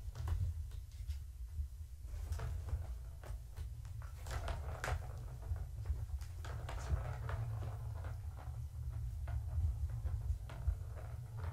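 Plastic cat track-ball toy clicking and rattling as kittens bat the ball around its circular track, with scattered knocks and scuffs of paws on the plastic, busiest a few seconds in. A steady low hum runs underneath.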